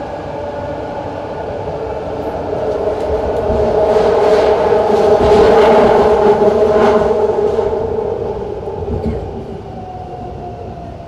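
Interior of a BART rapid-transit train car in motion: a steady motor whine over rail rumble and wheel clatter. It grows louder toward the middle and then eases off, with a rising whine near the end.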